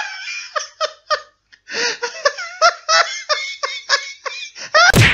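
Laughter sound effect: a run of short, high-pitched ha-ha bursts with brief pauses, ending in a loud burst near the end.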